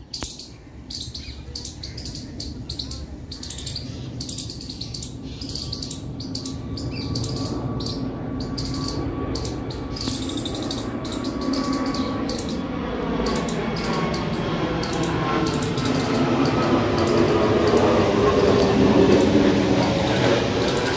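Birds chirping, short high chirps repeated two or three times a second, under a low rumble with wavering tones that grows steadily louder and is loudest near the end.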